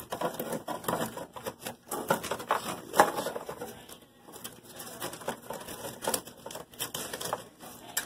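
Hard lime scale being broken and scraped out of an ice machine's evaporator water trough by hand: irregular clicking, crunching and scraping of scale chunks against metal, with a louder knock about three seconds in.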